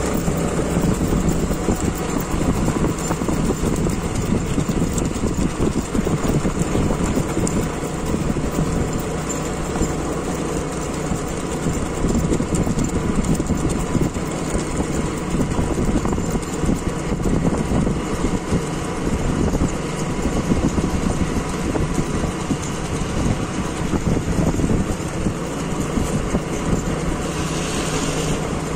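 A motor vehicle running steadily as it keeps pace alongside the horse, with engine and road noise throughout.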